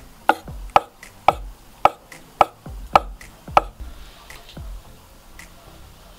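Kitchen knife chopping boiled egg whites on a wooden cutting board: about seven sharp knocks, roughly two a second, stopping a little past halfway.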